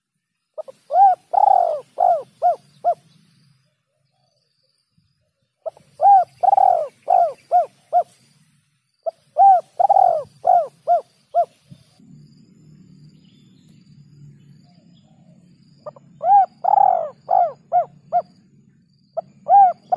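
Spotted dove (tekukur) cooing its song, a short note, a long drawn coo, then a run of quicker, shorter coos. The phrase repeats four times at intervals of a few seconds, and another begins near the end. Under the later phrases runs a faint low hum.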